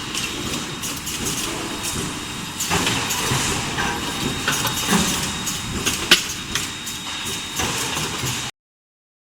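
Steel-bar induction heating and forging line running: steady machine noise with scattered clanks and a thin steady high whine, and a sharp knock about six seconds in. The sound cuts off suddenly near the end.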